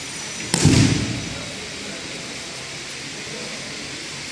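A body landing on the mat in an aikido breakfall after a throw: one heavy thud about half a second in.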